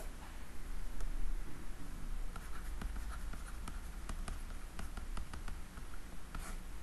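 Stylus scratching and tapping on a drawing tablet in short, quick strokes as a word is handwritten, over a low steady hum.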